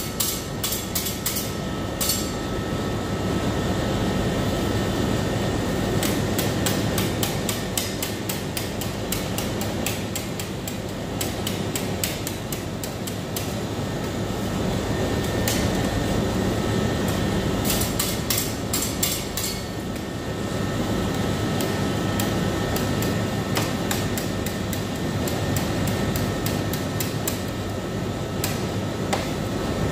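Metal spatulas scraping and tapping on the frozen steel plate of a rolled-ice-cream machine as the ice cream is pushed into rolls, in several runs of rapid clicks. A steady machine hum runs underneath.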